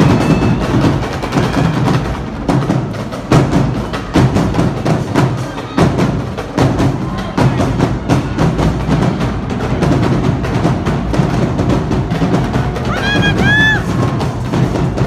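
Loud percussion-heavy music with dense drum hits, with crowd noise behind it. Near the end a high cheer rises and falls a few times.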